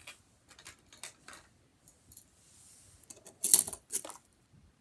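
Tech Deck fingerboard being taken out of its packaging: scattered small clicks and taps, with a louder cluster of clacks about three and a half seconds in.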